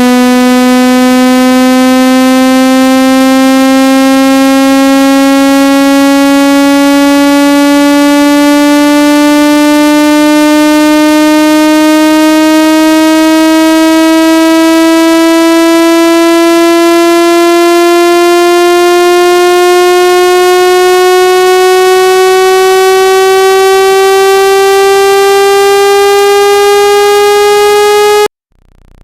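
Synthesized water-ejection tone for clearing water from a phone speaker: a loud, buzzy tone rich in overtones, gliding slowly and steadily upward in pitch, then cutting off suddenly near the end.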